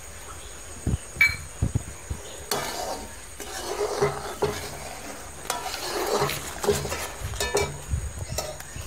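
Steel ladle scraping and clinking against a steel kadai as sugar syrup is stirred near boiling, with a few sharp knocks about a second in. The syrup is coming up to the right consistency as cardamom powder goes in.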